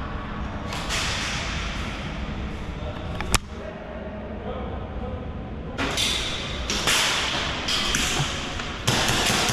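A single sharp snap about three seconds in, a shot from an airsoft gun. From about six seconds in come repeated short bursts of rustling noise.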